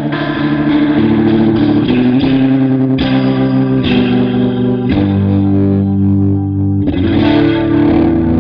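Electric guitar playing a chord progression through an Electro-Harmonix Lester K rotary-speaker emulation pedal. The chord changes roughly every second, with one chord held for about two seconds past the middle.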